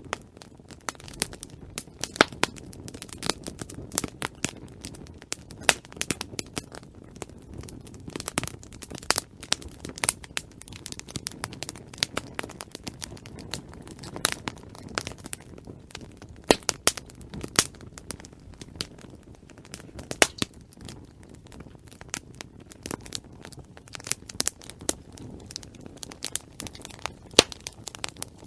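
Campfire burning: many sharp irregular crackles and pops over a low steady rush of flame.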